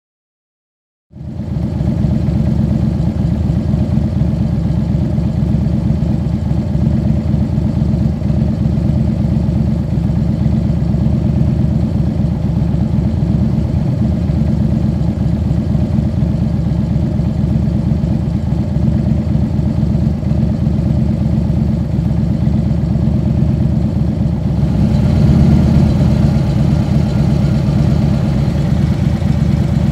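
Harley-Davidson Dyna Switchback's air-cooled V-twin idling steadily through Vance & Hines Switchback Monster Duals exhaust with standard baffles, a deep even rumble. It cuts in about a second in and grows a little louder and brighter near the end.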